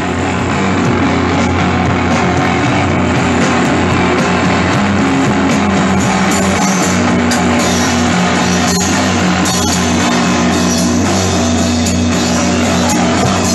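Live rock band playing loudly: electric guitar over drums.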